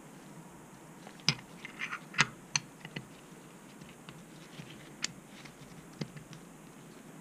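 Sharp, light clicks and taps as a brake piston is pressed by hand into an OTK BSD kart brake caliper, knocking against the caliper as it is worked square past the new seal. A quick run of them comes between about one and three seconds in, then two more about a second apart.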